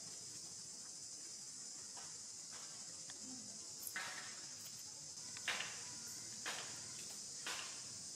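Insects droning steadily and high-pitched, with four short wet bites or chews about a second apart in the second half as a young monkey eats a small orange.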